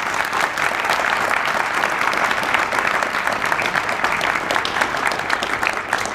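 Audience applauding, a dense, steady clapping that begins to die down at the very end.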